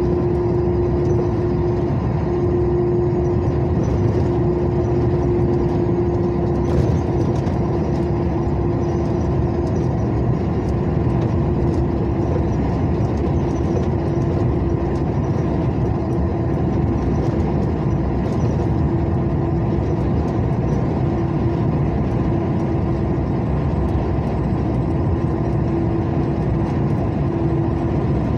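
Truck cab interior while driving: steady engine and road rumble with a constant droning tone and a few faint light rattles.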